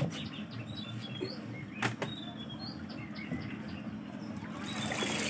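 Small birds chirping in short scattered calls, with a single sharp knock about two seconds in. Near the end, a hiss of water trickling rises as a plastic crab box is lifted from the pond.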